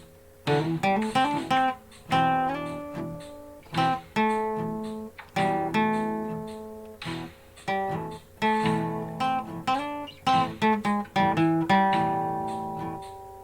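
Acoustic guitar playing a blues riff: quick runs of picked notes between strummed chords, each ringing out and fading, with a note bent upward about two and a half seconds in.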